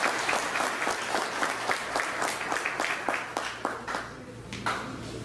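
Audience applauding: dense clapping that thins out and dies away about four seconds in, with a last scattered clap or two.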